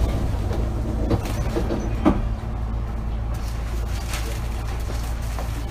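Cabin of a Hankyu 8000 series commuter car standing still: a steady low hum of its onboard equipment, with short knocks about one and two seconds in.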